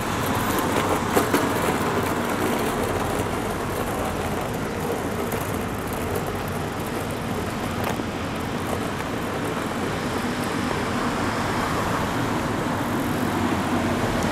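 Steady street traffic noise, cars running on the road alongside, with a few faint ticks on top.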